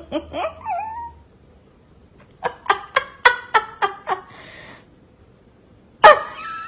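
A pet animal making short pitched calls: a couple at the start, then a quick run of about seven in a second and a half, and one loud call near the end.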